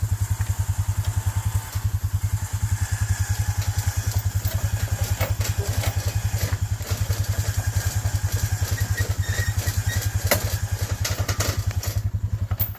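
ATV engine idling with a steady, even putter. A few knocks and clatters sound near the end.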